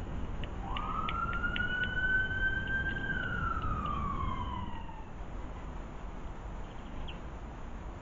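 Emergency-vehicle siren giving one slow wail: it sweeps up sharply, climbs gently for a couple of seconds, then falls away and stops about five seconds in. A few short, high chirps or ticks come in the first two seconds.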